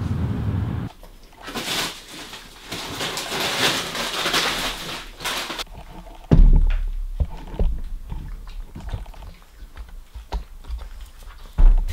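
A Boston terrier puppy eating dry kibble from a bowl on a hard floor: scattered small clicks and crunches with several low thumps. These follow a few seconds of rustling noise.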